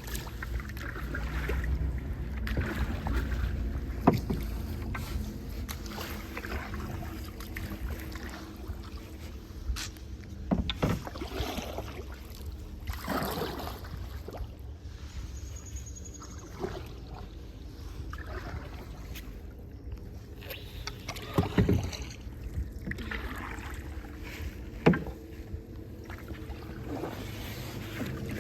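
Paddles dipping and swishing through creek water from a small paddled boat, with a few sharp knocks. Wind noise runs on the microphone throughout.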